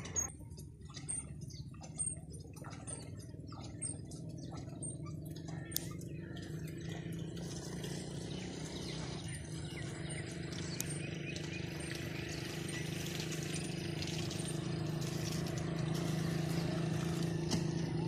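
A low, steady engine hum grows gradually louder, with a faint run of high chirps in the first half and a few light clicks.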